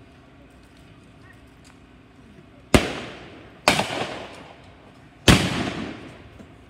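Three gunshots from blank-firing weapons in a mock battle. The first comes under three seconds in, the second about a second later and the third about a second and a half after that, each trailing off in an echo.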